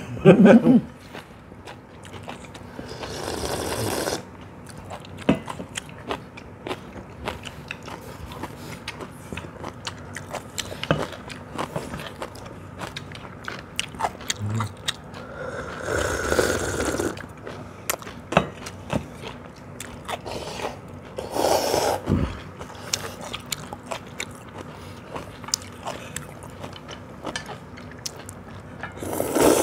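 People eating cold bean-broth noodles. There is slurping of noodles and broth with chewing, and small clicks of chopsticks against stainless steel bowls throughout. A few longer slurps stand out: a few seconds in, about halfway, a little later, and right at the end.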